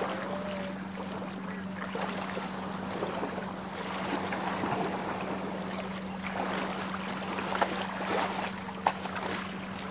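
Shallow sea water sloshing and lapping around people wading, with wind on the microphone and a steady low hum underneath; two short knocks near the end.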